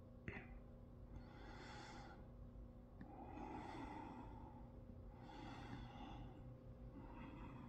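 Faint breathing close to the microphone: four soft breaths about two seconds apart, with a single click just after the start.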